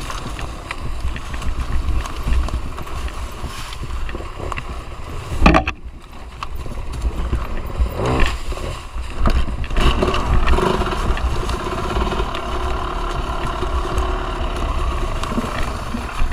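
Two-stroke enduro dirt bike engine running at low, varying revs while riding a rough trail, heard from the rider's own camera with a heavy low rumble on the microphone. A sharp knock about five seconds in.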